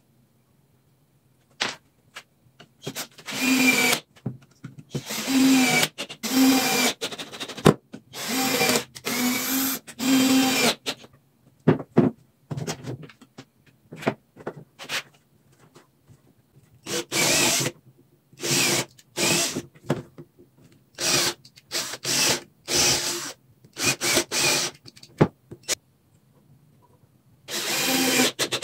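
Electric drill run in about a dozen short trigger bursts, each half a second to a second and a half, with a steady motor pitch, during woodworking on pallet wood. Small clicks and knocks fall between the bursts, with a longer pause of clicks only midway.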